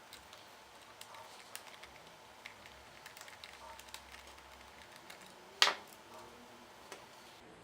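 Light scattered clicks and taps from handling a laptop's case and its small screws during disassembly, with one sharp click about five and a half seconds in, the loudest sound.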